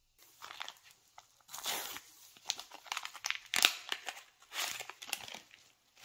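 A tea-bag sachet being crinkled and torn open by hand, a string of irregular crackles and rips, loudest about three and a half seconds in.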